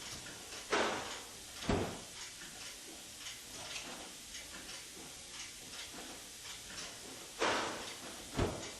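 Sharp "Dotchimo Door" refrigerator door being cycled open and shut in a door open-close endurance test. Two cycles: each is a sharp sound followed about a second later by a low thud as the door shuts. Faint ticking continues underneath.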